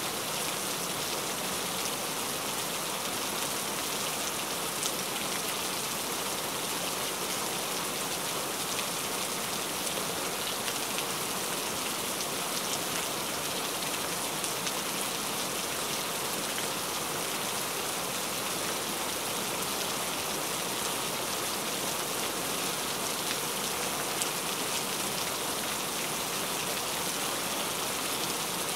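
Heavy rain falling steadily: an even hiss of countless drops with a few sharper ticks of single drops.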